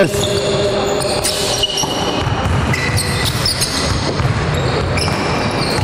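Basketballs bouncing and sneakers squeaking on a wooden sports-hall floor during a team drill, with short knocks and high squeaks overlapping throughout and the hall's echo behind them.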